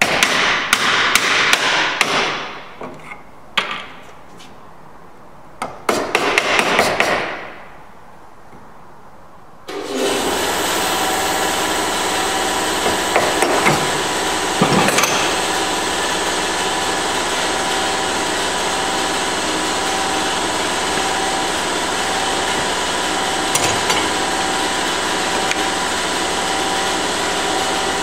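A chisel is struck with rapid blows, chopping into pine on the marked shoulder line, in two bursts over the first seven seconds. About ten seconds in, a workshop machine starts and runs steadily with a constant hum.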